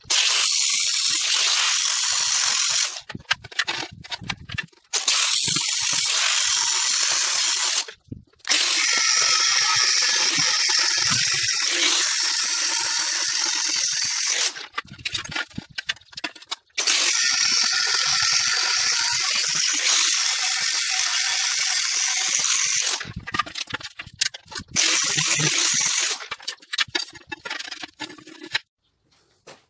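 Angle grinder grinding the face of a steel disc, a harsh high-pitched grinding that comes in several runs of a few seconds each, stopping and starting.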